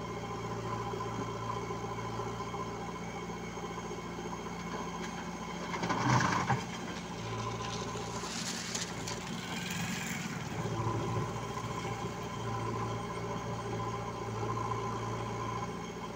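Diesel engines of a JCB 3DX backhoe loader and a tractor running steadily, the engine note dipping and coming back several times as the machine works. There is a short loud clatter about six seconds in.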